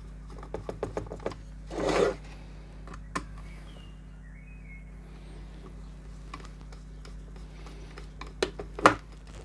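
Small clicks and a brief scrape from handling a signal wire and pushing it into an LED signal splitter's input terminal, over a steady low hum. The clicks come in a quick cluster early, then again near the end.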